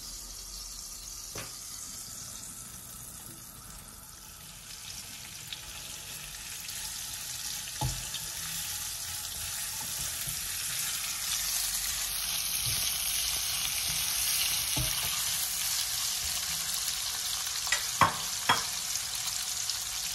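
Sliced onion frying in hot oil in a nonstick pan: a steady sizzle that grows louder from about five seconds in. A few light knocks come as it is stirred, two of them close together near the end.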